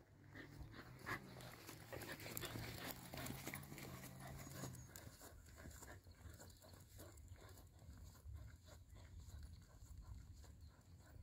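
Very faint sounds of a dog walking alongside: panting and light regular steps on a paved road. A faint low hum runs through the first half and stops about halfway.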